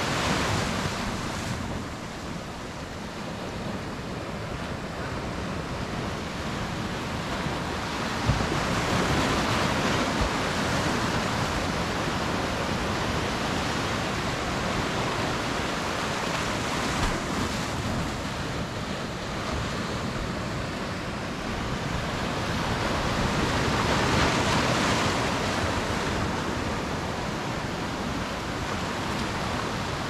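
Sea surf breaking and washing in over shoreline rocks: a continuous rush of waves that swells twice, about ten seconds in and again near twenty-four seconds.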